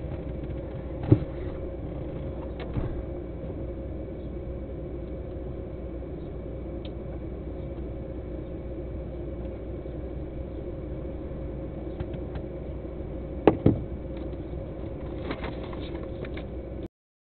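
Truck engine idling steadily, heard from inside the cab, with a few sharp knocks: one about a second in, a lighter one soon after, and a double knock near the end. The sound cuts off suddenly just before the end.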